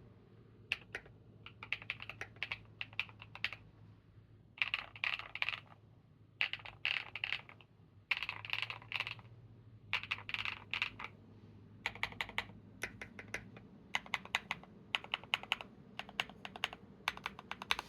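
Typing on a Monsgeek M2 mechanical keyboard with lubed G-Squared White Warrior v2 linear switches and KAT-profile keycaps. It comes in bursts of fast keystrokes, then turns to slower, spaced keypresses in the last third.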